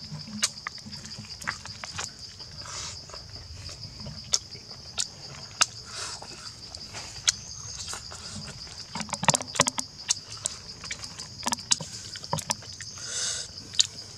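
Irregular sharp crackles and snaps of crisp roasted duck skin and meat being torn apart by hand and eaten, over a steady high insect buzz.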